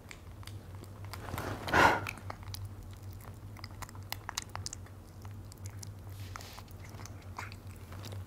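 A baby monkey eating apple and banana slices from a plate: quiet chewing and crunching clicks, with one louder brief sound about two seconds in.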